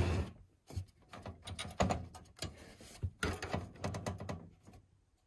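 Irregular clusters of small clicks and light knocks as hands handle a motherboard and its CPU cooler inside a PC case. The clicks come thickest about two seconds in and again from about three to nearly five seconds in.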